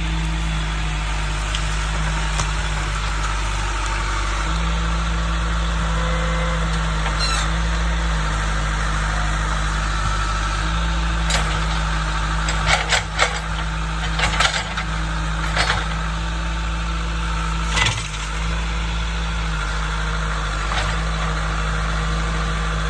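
John Deere 310D backhoe's diesel engine running steadily under work. Several sharp cracks and knocks sound over it, a cluster about halfway through and one more a few seconds later.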